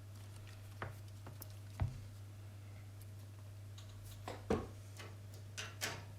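A few small, sharp clicks and taps of hand tools handled at a workbench, the loudest about two seconds in and again midway, over a steady low hum.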